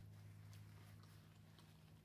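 Near silence: room tone with a low steady hum and a few very faint ticks.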